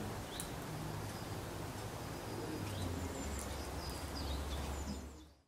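Steady background noise with a low hum, and a few faint, short bird chirps scattered through it; the sound fades out just before the end.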